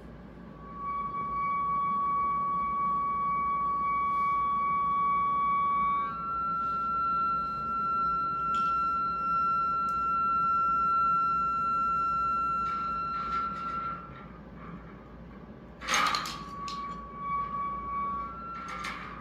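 Sustained electronic tones from an improvised electronic sound rig. A steady pitch holds for about five seconds, then steps slightly higher and holds for about eight more before fading. A few sharp clicks come about 16 s in, and the lower tone returns briefly.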